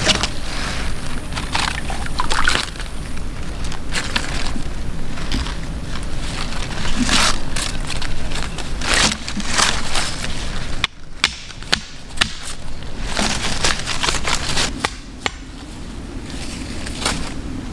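Shallow stream water splashing and sloshing, with rustling brush and scraping, as a woven bamboo fish trap is handled and laid down in the water; a run of short, irregular noises.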